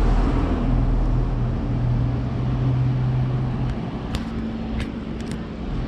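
Road traffic: a motor vehicle's engine hum over street noise that fades after a few seconds, then a few sharp clicks.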